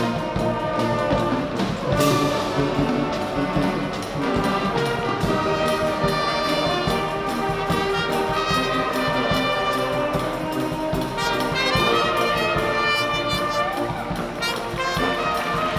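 Bicycle showband's brass band playing a tune with a steady beat, horns sounding sustained notes throughout.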